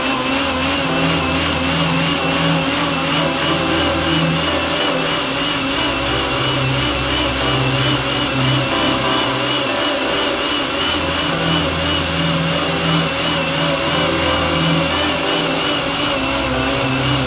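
High-speed countertop blender running steadily at full speed, blending hemp seeds, a date and water into hemp milk, with a slightly wavering high whine over the motor noise.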